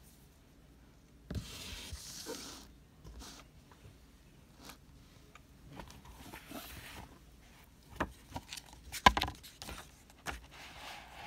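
A hardcover cookbook being handled on a table: a sliding rustle about a second in, a few light taps, a cluster of sharp knocks about nine seconds in as the book is opened, then paper pages rustling near the end.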